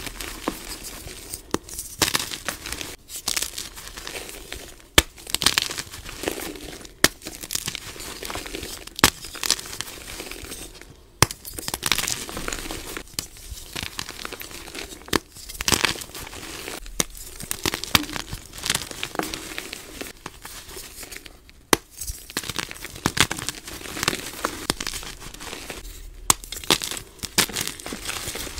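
Blocks of fresh gym chalk crushed and crumbled by hand over a bowl of loose chalk powder: dry, soft crunching broken by sharp crackles and snaps at irregular moments.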